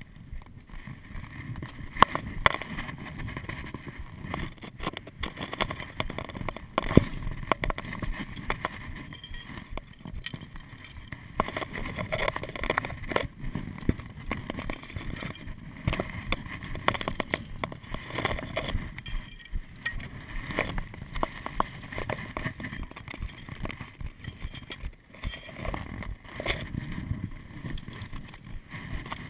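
A climber moving over loose rock: irregular crunching steps and sharp clicks of a trekking pole and ice axe tip striking the rock, with the rub of rope and clothing. The loudest knocks come about 2 and 7 seconds in.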